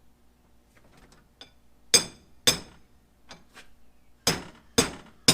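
Hammer blows with a metallic ring: a few light taps, then five hard strikes from about two seconds in, breaking the bead of a small go-kart tire loose from its rim by hand.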